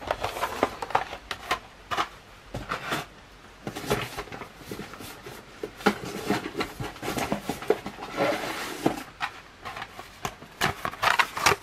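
Cardboard and plastic blister-card packs of die-cast toy cars being handled in a cardboard case: an irregular run of clicks, taps and rustling scrapes.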